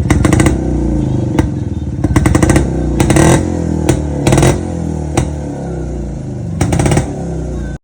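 Restored 1973 Jawa 250's single-cylinder two-stroke engine running, with several short bursts of throttle that bring a louder crackle. The sound cuts off abruptly near the end.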